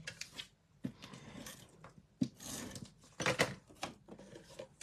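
Card-stock panels being handled on a cutting mat: paper sliding and rustling, with a few sharp taps as the panels are set down and picked up.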